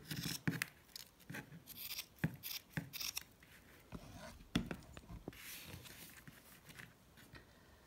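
Kitchen scissors snipping through fibreglass mesh: a quick series of sharp snips over the first three seconds, then softer rustling as the cut mesh sheet is handled.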